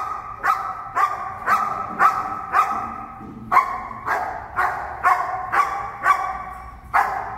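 German Shepherd barking steadily at a decoy in a bite suit, about two barks a second with a short break near the middle: a protection dog's guard barking at the threat.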